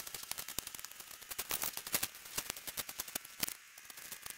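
A snow shovel crunching into packed snow: a dense run of irregular, crackling clicks that thins out near the end.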